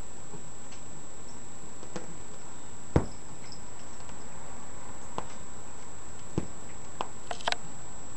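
A cat scrabbling weakly up upholstered couch cushions, giving a few scattered light clicks and one louder knock about three seconds in, with a short cluster of clicks near the end. Steady hiss and a faint high whine run underneath.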